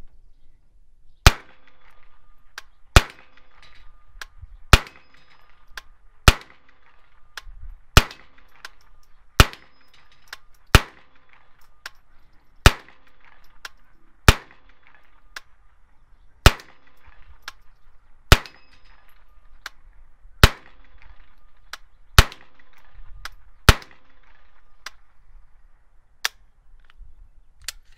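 Semi-automatic AR-platform .22 LR pistol fired in slow, single aimed shots. There are about fourteen sharp cracks, one every 1.5 to 2 seconds, with the last about four seconds before the end.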